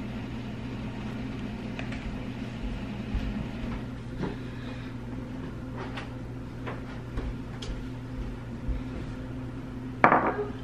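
A ceramic coffee mug set down on a hard countertop with one sharp knock near the end, over a steady low hum and a few faint clicks of things being handled.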